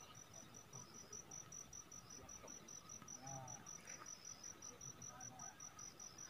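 A cricket chirping faintly in a steady, even, high-pitched pulse of about six chirps a second.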